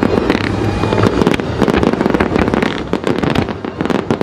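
Fireworks display: a rapid, unbroken run of bangs and crackling as many shells burst in quick succession.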